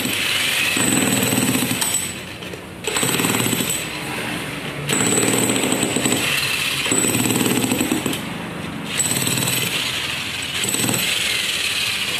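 Electric demolition hammer (jackhammer) chiselling into concrete floor tile. It hammers in stretches of a few seconds, easing off briefly about two seconds in and again about eight seconds in.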